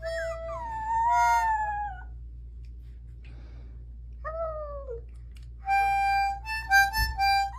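A cat meowing in long falling cries, with harmonica-like held notes in the second half.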